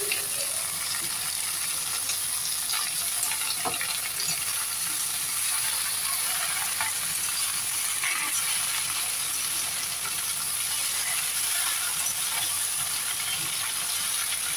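Leafy amaranth greens sizzling as they fry in hot oil in a steel wok, being stirred with a metal spoon. The sizzle is steady, with a few brief scrapes and clicks of the spoon against the pan.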